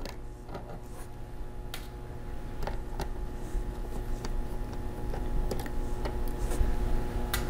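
Light, scattered clicks and ticks of a #0 Phillips screwdriver turning screws out of a Lenovo IdeaPad 110 laptop's bottom case, over a low steady hum.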